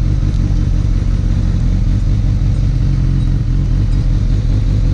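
Kawasaki Ninja ZX-6R's inline-four engine running at a steady speed on the road, heard through its Akrapovič exhaust.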